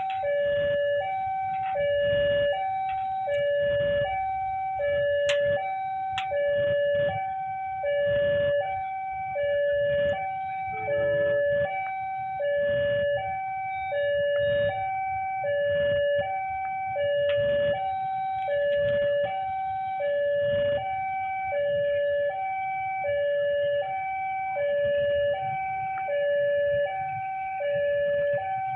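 Railway level-crossing warning alarm sounding its repeated two-tone electronic chime, a higher tone then a lower one, a pair about every second and a half, over low road-traffic rumble.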